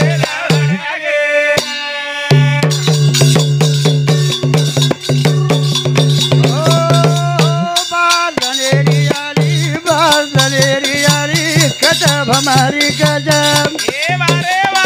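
Banjara devotional bhajan sung by a man's voice in long, wavering melodic lines over a steady low accompaniment and a quick, even percussion beat with a rattling, jingling sound.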